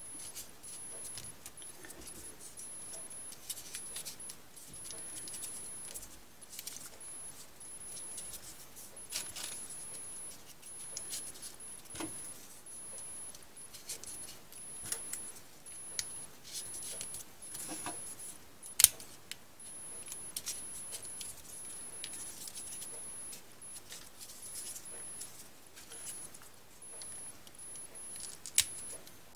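Folded paper triangle units of modular 3D origami rustling and crinkling as they are handled and pushed into the model's rows, with small irregular ticks and a sharper snap about two-thirds of the way through.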